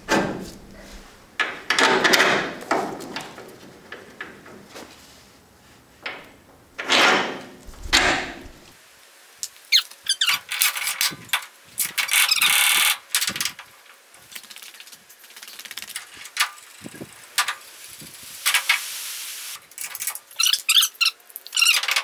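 Metal front suspension parts being handled and fitted by hand: an adjustable upper control arm, bolts and a coilover clink, knock and scrape in irregular short bursts, with a longer rough scrape about twelve seconds in.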